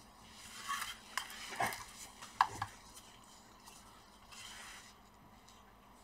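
Faint handling sounds of a small circuit board and hand tools on a work mat: soft rustling with a few light clicks and taps in the first half, then a brief soft hiss.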